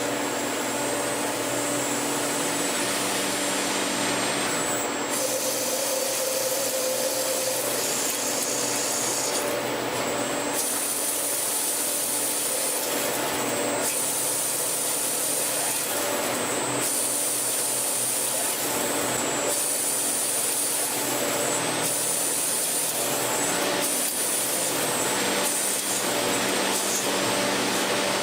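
CNC lathe running a machining cycle. A steady rough cutting and scraping noise is overlaid with a motor hum and a high whine that switches on and off every few seconds, while lower motor tones step up and down in pitch.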